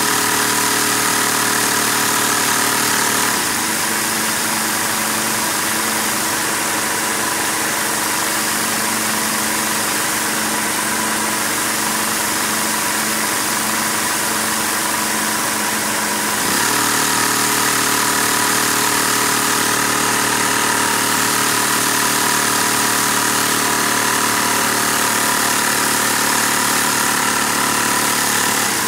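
A Lego V-twin vacuum engine running on a household vacuum cleaner's suction: a steady mechanical running sound with a constant whine. The pitch and level dip slightly about three seconds in and come back up about sixteen seconds in.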